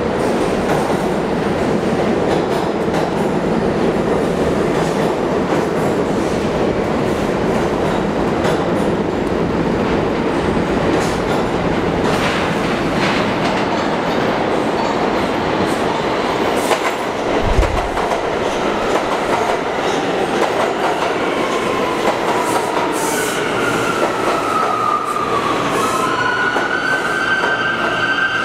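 Bombardier R179 subway train pulling into the station: a steady rumble of wheels on the rails with a few sharp clicks, a single low thump about two-thirds of the way through, then whining tones that glide down and up near the end as the cars run along the platform.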